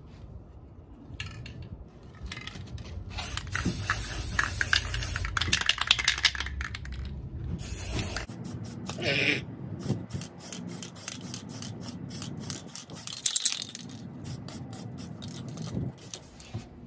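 Aerosol spray-paint can hissing in several bursts as black paint is sprayed onto a cabinet door, followed by a quick run of short clicks.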